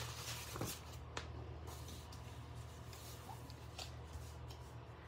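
Faint rustling and a few light taps as a sheet of grid paper and a small piece of white cardstock are laid down and positioned on a tabletop, over a steady low hum.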